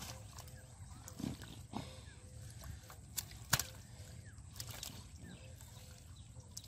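Hands and a round bowl digging and scooping in shallow mud and water: scattered wet squelches and splashes, with a sharper knock about three and a half seconds in.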